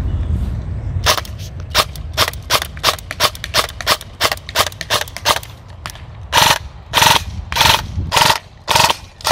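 Airsoft electric rifle, a Beretta ARX 160 AEG, firing. From about a second in, a quick string of shots comes about three a second. From about six seconds in come louder shots spaced a little over half a second apart.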